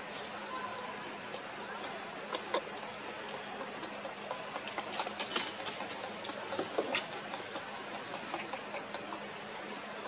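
A steady, high-pitched insect chorus pulsing rapidly and evenly, several pulses a second, with a few brief faint squeaks over it.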